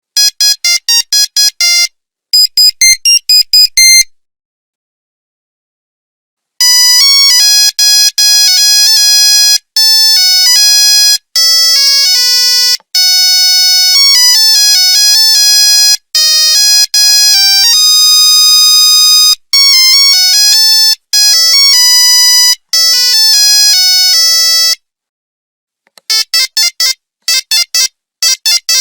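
Nokia 3310 monophonic ringtones playing one after another: a string of short beeps and a quick beeping pattern, a pause, then a long tune of single electronic notes, and after another pause a fast beeping tune starting near the end.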